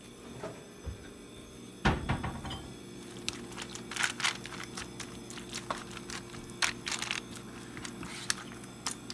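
Scattered clicks and taps of things being handled on a kitchen counter, with one louder knock about two seconds in, over a steady low hum.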